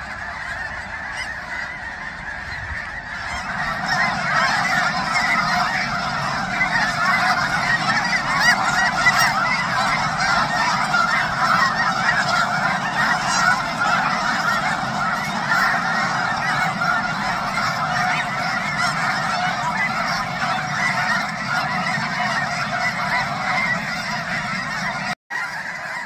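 A huge flock of snow geese calling all at once: a dense, unbroken din of honking that grows louder three or four seconds in. The sound drops out for a split second near the end.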